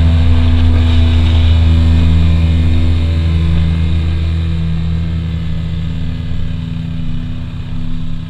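Formula 200 EVO motorcycle engine running steadily while cruising, with wind and road noise, as heard by the on-bike camera. It gets gradually quieter in the second half as the throttle eases off.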